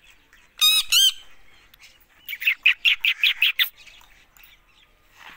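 Rose-ringed parakeet calling: two loud screeches in quick succession just under a second in, then a fast run of about eight short chattering calls in the middle.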